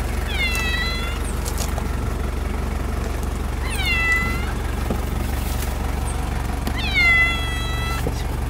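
A cat meowing three times from inside a pet carrier: long drawn-out meows, each starting high and falling, a few seconds apart, over a steady low rumble.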